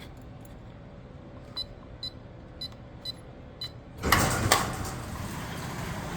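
Electronic vault lock keypad beeping five times, one short high beep per button press as a code is entered. About four seconds in comes a louder clatter with two sharp knocks, followed by a steady rushing noise.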